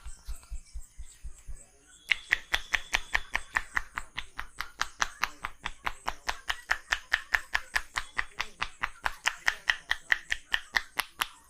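Percussive hand massage: the barber's hands striking the client's body in a fast, even chopping rhythm. There are a few dull low thumps at first, then from about two seconds in sharp slaps come about six a second until shortly before the end.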